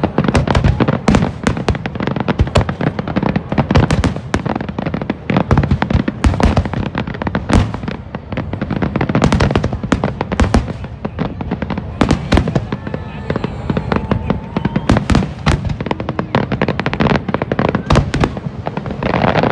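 Aerial fireworks display: a dense barrage of shell bursts, sharp bangs several a second without a break, with a popcorn-like crackle.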